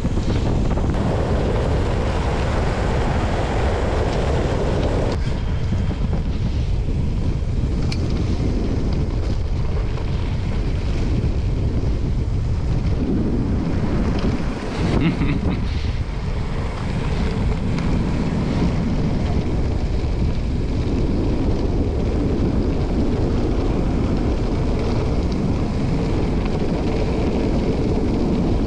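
Wind buffeting the microphone of a camera on a moving bicycle, a steady rumbling noise that shifts abruptly at edits about five and fifteen seconds in.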